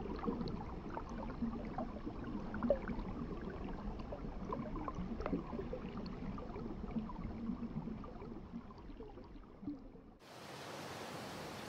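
Water trickling and bubbling in a small pool: a busy crackle of tiny ticks and gurgles that thins out toward the end. About ten seconds in it cuts off abruptly and gives way to an even, steady hiss.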